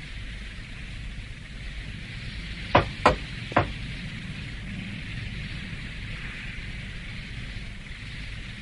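Steady hissing noise over a low rumble, with three sharp knocks close together about three seconds in.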